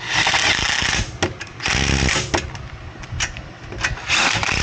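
Cordless power tool running in three short bursts, driving in the dust-shield bolts on a wheel hub, with small metal clicks between bursts.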